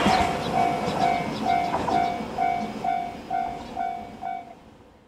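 Japanese level-crossing warning bell ringing about twice a second and stopping about four and a half seconds in, over the fading rumble and rail clicks of a departing JR Kyushu 303 series electric train. The sound fades out near the end.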